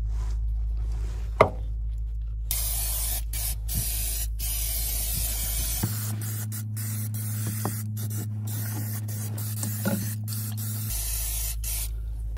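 Aerosol can of Fluid Film rust protectant spraying in a long hiss, broken by many short pauses, starting a couple of seconds in. A single sharp click comes just before the spraying begins.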